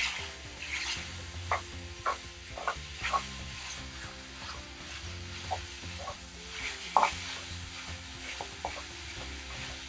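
Minced beef sizzling in a non-stick frying pan while a wooden spatula breaks it up and stirs it, with irregular taps of the spatula against the pan; the loudest tap comes about seven seconds in.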